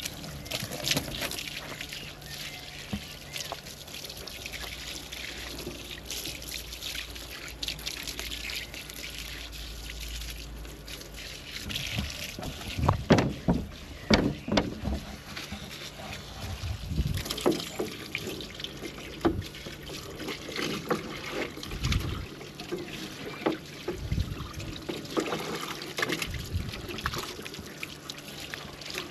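Water from a garden hose spraying and splashing onto a red ride-on lawn mower as it is washed down, a steady hiss and patter. Several loud knocks and clatters come about halfway through, with a few more later.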